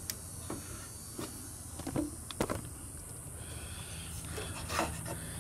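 Quiet stretch of low, steady background hum with a few faint, short clicks and taps scattered through it.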